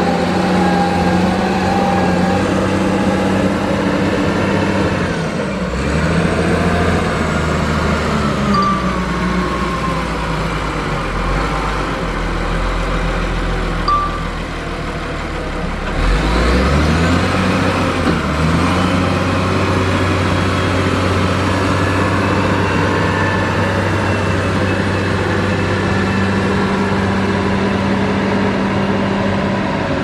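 Dresser motor grader's diesel engine running while it grades. The engine note drops about five seconds in and again around fourteen seconds, then climbs back up around sixteen seconds.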